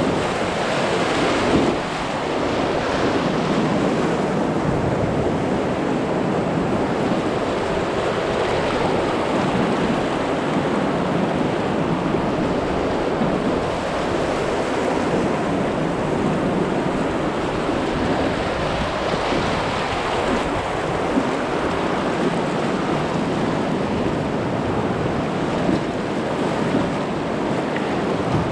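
Steady rushing of river rapids around an inflatable pontoon boat, with wind buffeting the microphone.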